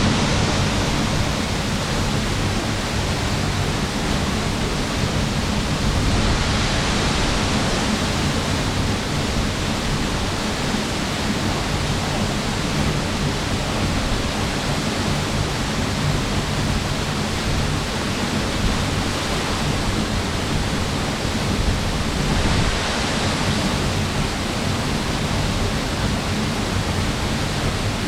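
Steady rushing noise of falling water.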